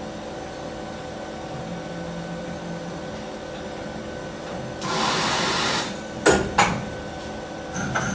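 Plastic injection molding machine running with a steady hum. About five seconds in comes a rushing hiss lasting about a second, then two sharp clunks as the mold opens, and more knocks near the end.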